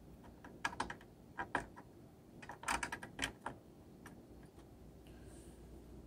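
A CPU heatsink-and-fan unit being handled and set back onto the processor: faint, scattered clicks and light taps, bunched in a few clusters in the first half.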